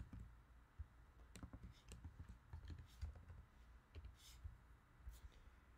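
A few faint, scattered clicks of a computer keyboard and mouse over quiet room tone.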